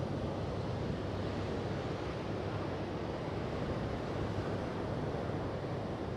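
Steady rushing noise of ocean surf mixed with wind, even throughout with no distinct wave breaks.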